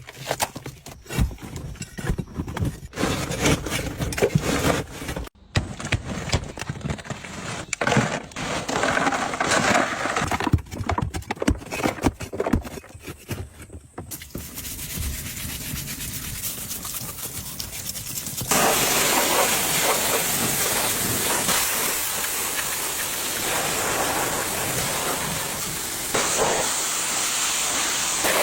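Irregular scraping and rubbing with scattered clicks. Then, about two-thirds of the way through, a pressure washer starts spraying with a steady, loud hiss.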